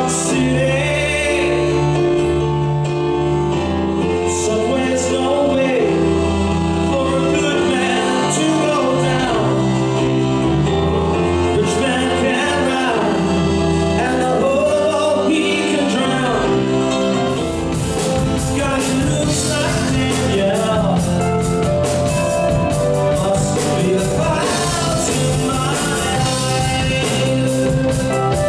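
Live band music: a man singing over accordion, electric bass and piano, with the drum kit and cymbals coming in about two-thirds of the way through.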